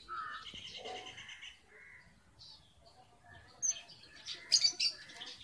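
Red avadavats (strawberry finches) chirping: a quick rattling trill in the first second, then a cluster of sharp, high chirps about four to five seconds in.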